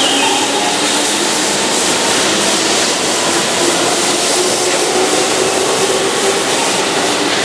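Keihan Electric Railway electric commuter train pulling away from a station platform, picking up speed, with a steady mix of wheel, motor and carriage noise.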